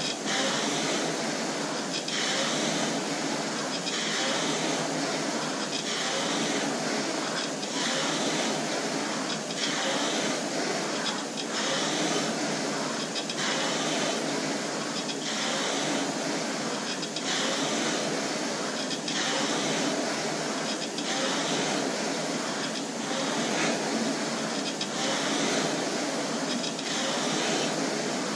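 Air-resistance indoor rowing machine worked hard at 2K-test pace: the fan flywheel whooshes in a surge on each drive, about one stroke every 1.8 seconds (roughly 33 a minute), with a steady spinning rush between strokes.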